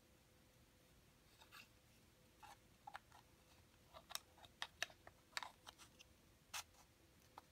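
Pieces of a six-piece star puzzle clicking and tapping against each other as they are handled and slid into place, a dozen or so light clicks spread unevenly, most of them in the second half.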